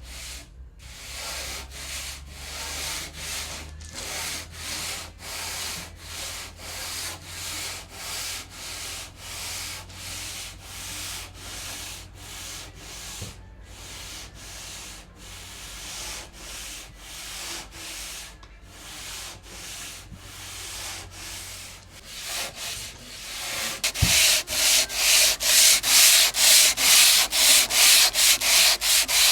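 Sandpaper worked by hand over fresh plaster on a wooden cabinet, in rhythmic back-and-forth strokes of about two a second. About three quarters of the way through, the strokes become louder and quicker.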